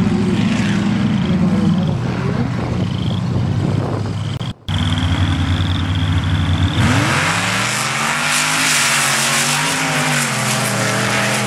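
Off-road drag-racing truck engines running, then a pair of race trucks sitting on the line with a high steady whine. About seven seconds in they launch at full throttle: engines revving hard under a loud rush of flung dirt.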